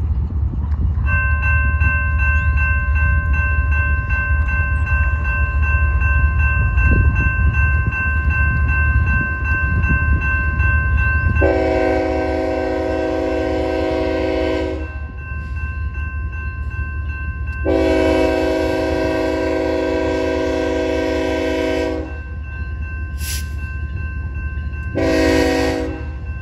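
Railroad crossing bell ringing steadily as the gates come down, then a BNSF locomotive's horn sounding a chord in two long blasts and a short one: the start of the grade-crossing signal for the approaching train.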